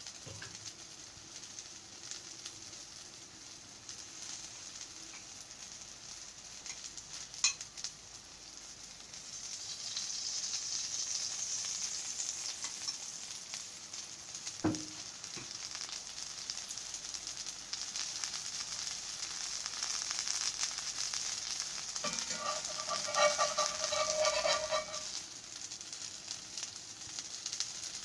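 Chickpea-flour pancake (pudla) sizzling as it fries in a pan, the sizzle growing louder about ten seconds in. A sharp click and a knock break in during the first half, and a brief squealing tone sounds for a few seconds near the end.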